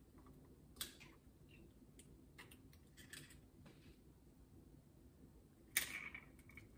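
Faint, scattered clicks and light knocks from handling an egg and a wire whisk over a mixing bowl, the loudest knock near the end with a brief ring.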